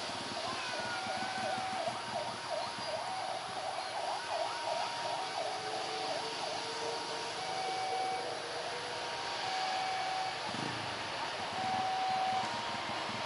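Twin-engine Airbus A330 widebody jet's engines running at low thrust as it lines up on the runway: a steady, even rush of jet noise. Over it come short repeated tones about a second or two apart, a high steady tone, and wavering calls in the first half.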